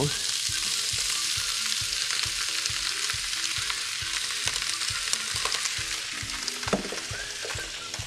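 Shrimp and mixed seafood sizzling steadily in a hot frying pan with onion and carrot, just added to the hot pan.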